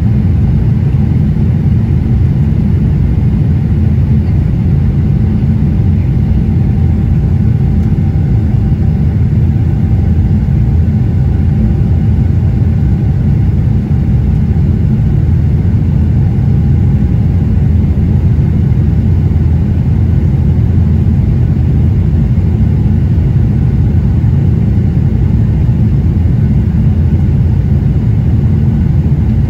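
Steady low rumble of a Boeing 777-300ER's GE90-115B engines and the airflow, heard inside the cabin during the climb after takeoff, with a faint steady tone over it.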